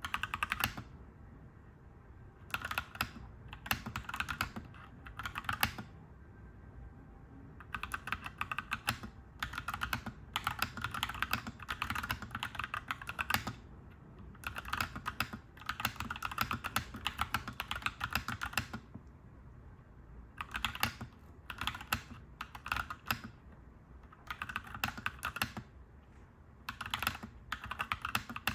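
Clacky mechanical keyboard being typed on in bursts of rapid keystrokes, separated by short pauses, over a steady low background rumble.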